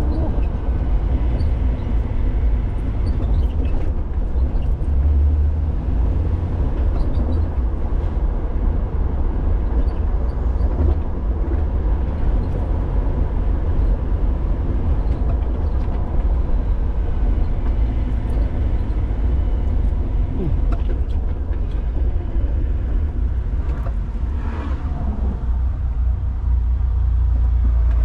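2006 Jeep Wrangler driving, with a steady low rumble of engine and road noise.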